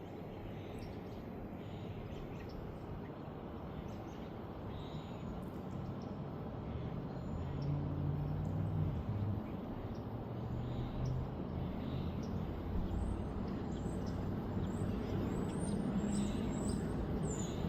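Small songbirds chirping in short, high calls, scattered at first and more frequent in the last few seconds, over a steady low hum from a mini-split heat pump unit.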